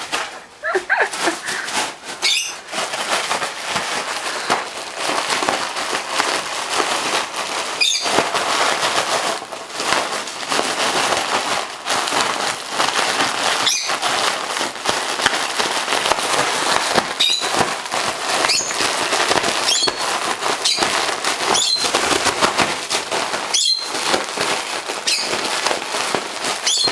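Chihuahua biting and shaking a foil (Mylar) balloon: continuous loud crinkling and crackling of the foil, full of sharp clicks, with brief high squeaks now and then.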